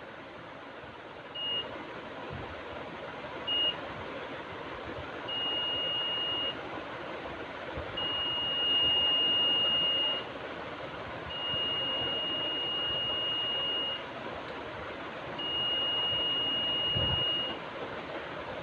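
Alarm buzzer of a DIY laser tripwire alarm sounding a single steady high tone, on and off: two short beeps, then four longer tones of about one to two and a half seconds each. Each tone marks the laser beam being interrupted.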